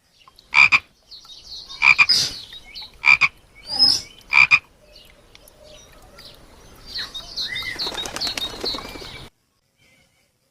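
Frog calling: four loud croaks about a second and a quarter apart, with higher chirping calls in between. From about seven seconds a denser run of high chirps follows, and the sound cuts off suddenly a little past nine seconds.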